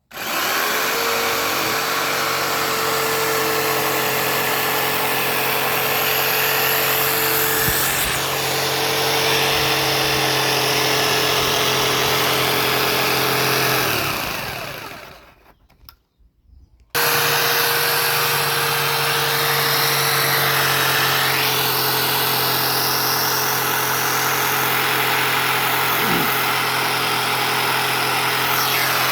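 Jigsaw with a marble blade cutting quartz countertop: the motor starts and runs steadily, winds down about fourteen seconds in, falls quiet briefly, then comes back in suddenly about seventeen seconds in and runs on.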